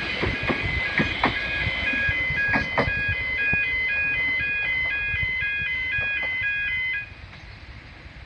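Level crossing warning bells ringing in a rapid alternating two-tone pattern, cutting off suddenly about seven seconds in, once the train has cleared the crossing. In the first few seconds the wheels of a departing 3-car Siemens electric train clack over rail joints.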